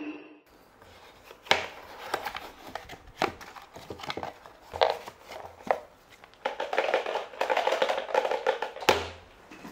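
Hands handling a small box and its plastic-bagged parts, with a few separate knocks and taps. Then a small cardboard box is shaken for about two seconds, its contents rattling, ending with a sharp knock.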